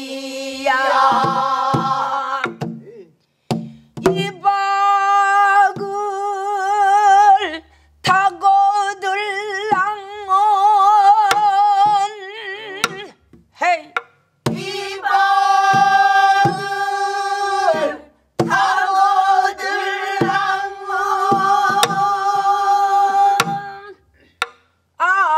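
Pansori singing in long held phrases with a wide, wavering vibrato, accompanied by sharp strokes on a buk barrel drum beaten with a stick, marking the rhythmic cycle.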